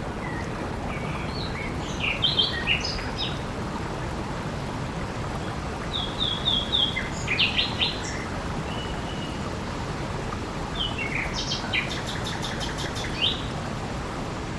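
Steady rush of flowing water with small birds chirping over it in short scattered phrases, including a quick run of notes around the middle and a rapid trill a couple of seconds before the end.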